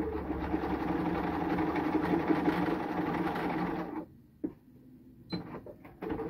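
Bernina B 535 computerized sewing machine running steadily as it sews a row of edge stitching, stopping suddenly about four seconds in. A few small clicks follow.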